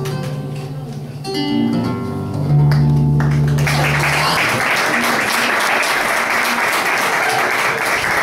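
Acoustic guitar playing its last notes, ending with a ringing low chord about two and a half seconds in. About a second later the audience breaks into applause, which keeps going to the end.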